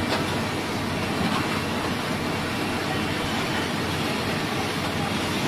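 Several large tracked hydraulic excavators running together under load as they lift a huge stone block: a steady, dense mechanical noise from their diesel engines and hydraulics.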